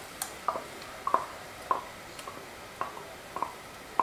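Soft plops, about seven of them at uneven intervals of roughly half a second, from a clay pot of boiling tamarind water as ground masala paste is spooned into it from a mixer jar.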